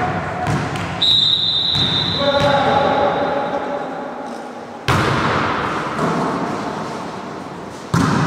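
Referee's whistle held as one long high tone about a second in, then a volleyball struck hard twice, about five seconds in and near the end. Each strike is sharp and rings out in the echoing sports hall, with players' voices calling in between.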